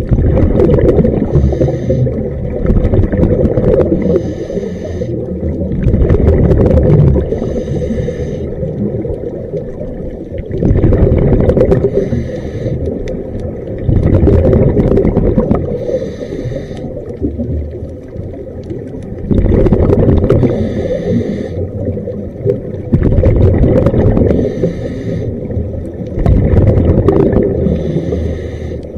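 Scuba breathing heard underwater through a regulator: a hissing inhale, then a loud rumble of exhaled bubbles, repeating about eight times at a slow, uneven rhythm of a few seconds per breath.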